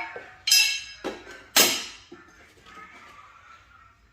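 Steel suspension brackets and tabs clanking together as they are handled and set down: four sharp metal clanks in the first two seconds, the second and fourth ringing briefly.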